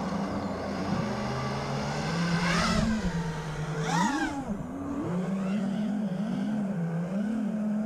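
FPV racing quadcopter's brushless motors and propellers buzzing at a mostly steady pitch, wavering a little, with two brief rising whines about two and a half and four seconds in. The near-steady pitch comes from a throttle held almost still for low, level flight.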